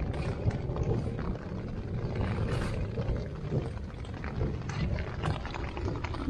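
Steady patter of rain on the nylon tent fly, heard from inside the tent, with scattered small ticks of drops and rustling of the tent's fabric pocket being handled.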